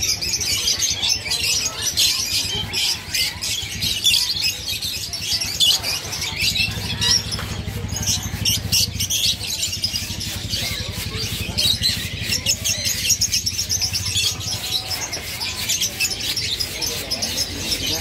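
Many caged birds chirping and twittering at once, a dense, rapid high-pitched chatter that never lets up. A low steady hum runs underneath from about six seconds in until near the end.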